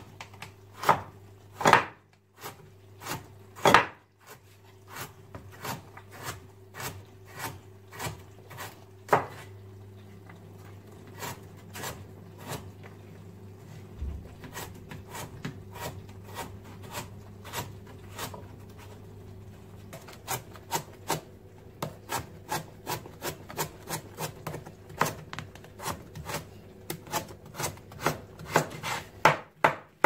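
A chef's knife chopping vegetables on a plastic cutting board: carrots, then mushrooms. The blade knocks the board in sharp taps, slow and uneven at first, then quick and regular, about three a second, in the last ten seconds.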